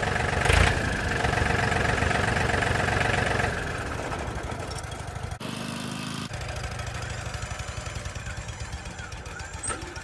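Engine idling with a steady, fast even pulse. It drops in loudness about three and a half seconds in.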